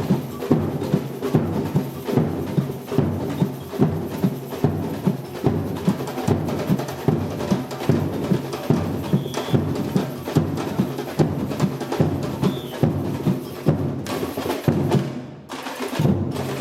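Batucada samba percussion band playing a steady driving groove on drums, with strong accented beats about twice a second. Near the end the playing drops away briefly, then the drums come back in.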